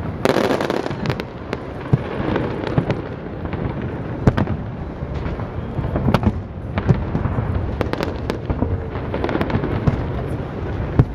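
Fireworks display: aerial shells bursting one after another, a string of bangs and booms with crackle. The densest volley comes in the first second.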